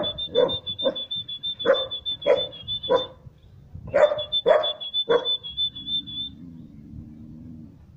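Three-month-old Siberian husky puppy barking at a stranger: a run of about six short, sharp barks, a pause of about a second, then three more.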